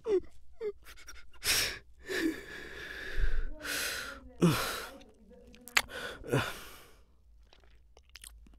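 A man crying: shaky sobbing breaths, sighs and gasps, with a few short falling whimpers. It dies down to quiet near the end.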